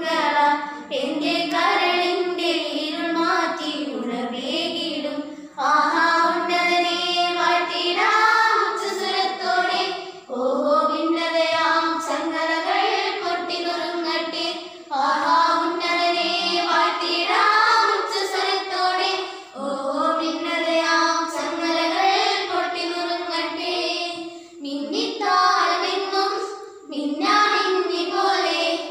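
A group of young girls singing a song together, in phrases broken by short pauses every four to five seconds.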